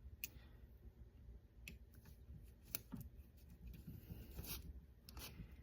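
Faint, scattered clicks and small rustles of parts and a tool being handled, over a quiet room.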